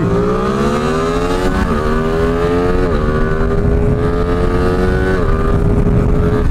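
Sport motorcycle accelerating hard from a standing start, its engine pitch climbing through the gears with three quick upshifts, at about one and a half, three and five seconds in.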